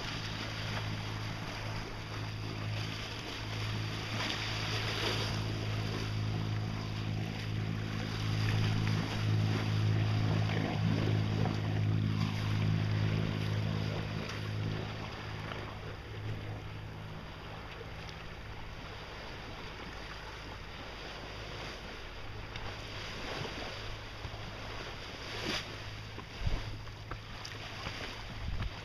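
A boat engine running steadily with a low hum, loudest in the first half and fading about halfway through, over wind on the microphone and water splashing along the hull.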